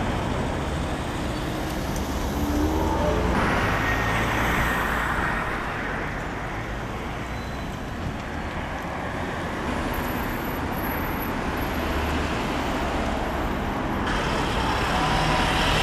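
Steady road traffic on a busy multi-lane street, vehicles passing by. It swells louder a few seconds in and again near the end as traffic goes past close by.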